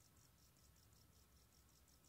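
Near silence: faint, high-pitched chirping pulses, about six a second, over a low hum.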